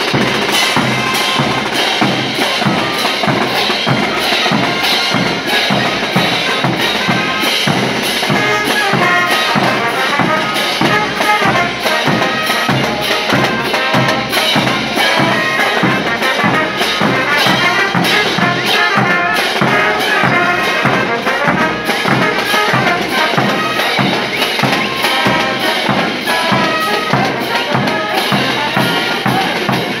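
Brass band playing a morenada: brass horns carry the melody over big bass drums and a snare drum keeping a steady marching beat.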